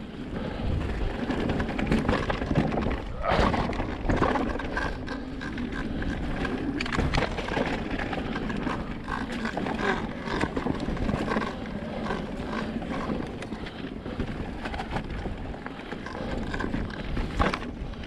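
Electric mountain bike riding over a rough trail: tyre noise on dirt and stones, with many knocks and clatters from the bike and its loose mudguard rattling.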